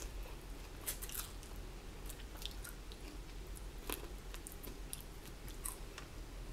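A person biting into and chewing fried chicken wings: irregular sharp crunches, a few louder than the rest, with chewing in between.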